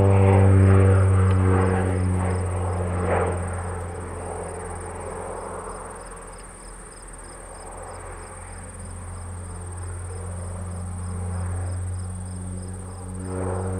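Crop-dusting airplane's engine and propeller droning overhead, fading as it turns away about halfway through and growing louder again near the end as it comes back around. Crickets chirp steadily underneath.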